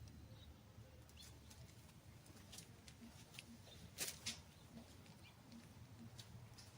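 Near silence: a faint low hum with two soft clicks about four seconds in.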